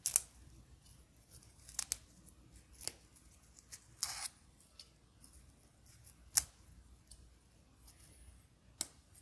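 Fresh mint leaves being plucked and torn off a sprig by hand: a handful of short, crisp snaps and rips spaced a second or two apart, with a longer tearing rip about four seconds in.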